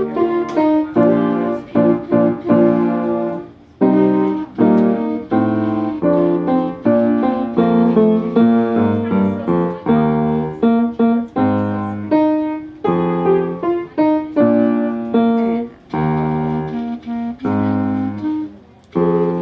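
Music: a beginning concert-band piece played in a stream of short, detached notes and chords, with a piano-like sound to the fore. The playing breaks off briefly about four seconds in and again near the end.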